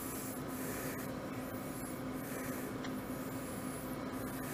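Glassworking bench torch hissing steadily over a low hum, with a few faint high scraping sounds as the hot glass rod is pressed into the squeezer's jaws.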